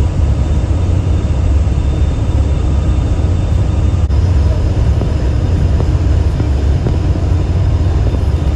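Passenger hovercraft under way, heard from inside the cabin: a loud, steady, low rumble from its engines and fans, with faint steady whining tones above it. There is a brief click about four seconds in.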